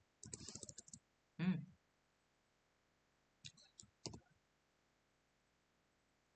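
Computer keyboard keys clicking: a quick run of keystrokes in the first second, then a few separate key or mouse clicks around three and a half to four seconds in. A brief hum of a voice comes between them.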